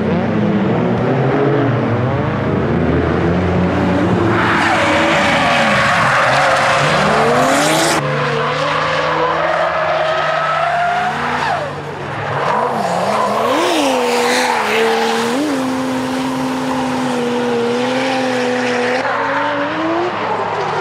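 Turbocharged 1JZ-GTE straight-six in a JZZ30 Toyota Soarer, upgraded to a GT3-series turbo, revving up and down repeatedly through a drift. Tyres screech, loudest a few seconds in.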